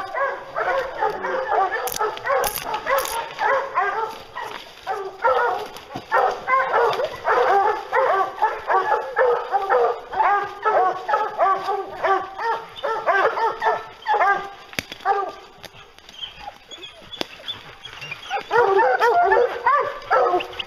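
A pack of hunting hounds baying and barking at a treed bear, many dogs calling over one another. The calls thin out about three quarters of the way through and come back loud near the end as the tree is reached.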